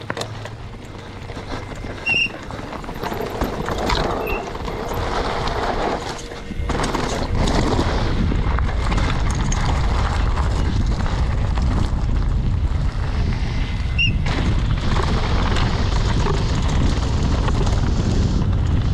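A downhill mountain bike ridden fast over loose shale and gravel: tyres crunching over the stones and the bike rattling over the bumps, with wind rushing over the camera microphone. The rumble gets much louder about six and a half seconds in, as the speed picks up.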